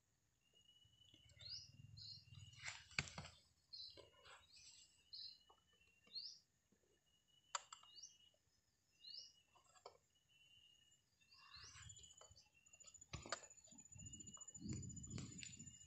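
Faint chirping of small birds repeating throughout, with a few sharp knocks and soft low thuds as a digging tool breaks into damp soil to turn up earthworms.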